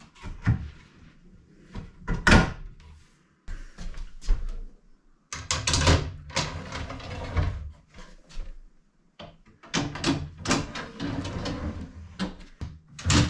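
Wooden drawers of a new hickory-faced kitchen base cabinet being slid in and out and knocked into place: a series of wooden knocks, the loudest about two seconds in, with a longer sliding rumble about halfway through.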